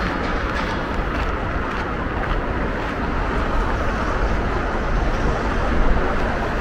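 Steady outdoor city noise dominated by a low traffic rumble, with wind buffeting the microphone.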